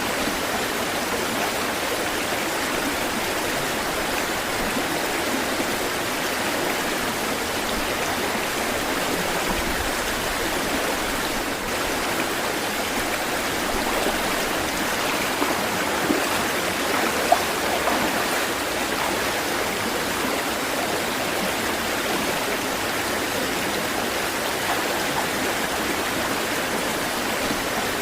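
Water flowing and rushing steadily, with a couple of brief splashes about two-thirds of the way through.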